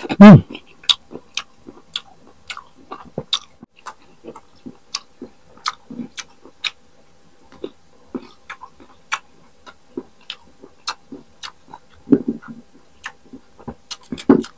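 Close-miked crisp crunching of unripe green mango being chewed: sharp crunches come every half second or so, with a louder bite right at the start.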